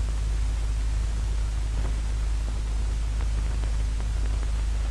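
Steady hiss and low hum of an old film soundtrack, with a few faint crackles.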